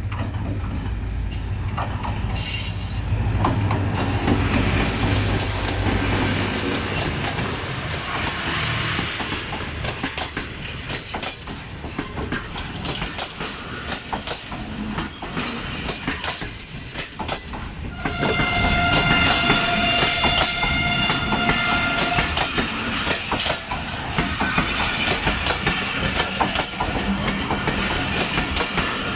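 Passenger train rolling through the station, its wheels clicking over the rail joints, with a diesel locomotive's low hum in the first few seconds. About two-thirds of the way in, a train horn sounds one steady blast for about four seconds.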